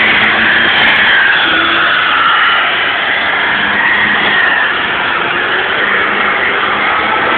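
Loud Holden VN Commodore burnout: the engine is held at high revs that rise and fall, over the steady noise of the spinning rear tyres.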